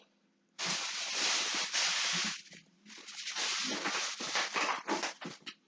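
Baking soda and vinegar foam fizzing, a crackling hiss in two long stretches with a short break between them.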